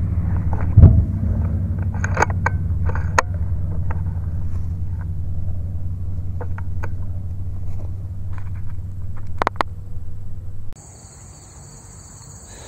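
A .30 FX Impact Compact air rifle fires once about a second in, a heavy thump over the steady low rumble of its scope-mounted camera, followed by a few sharp clicks. Near the end the rumble stops and crickets chirp steadily in the grass.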